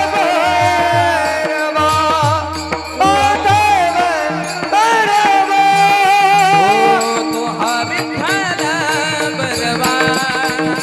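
Marathi devotional abhang music: pakhawaj drum strokes under a melody of long, wavering held notes.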